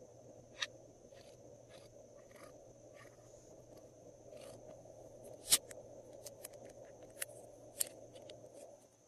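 Scattered light clicks and taps over a faint steady hiss, with one sharper click about halfway through: a hand dotting lines into glossy slime in a glass bowl and handling small plastic bottles.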